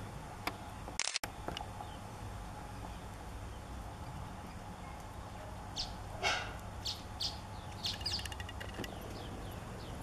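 Birds calling: a run of short, high chirps and calls in the second half, over a steady low background rumble, with a single sharp click about a second in.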